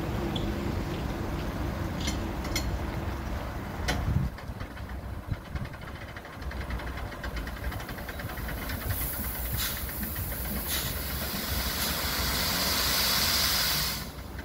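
Galion hand-crank dump body on a 1926 Ford Model TT being cranked up, with a few sharp clicks and then rapid ticking from the crank gear. From about nine seconds in, the load slides off the tipping bed in a swelling hiss, loudest near the end, that cuts off suddenly. A steady low engine hum runs underneath.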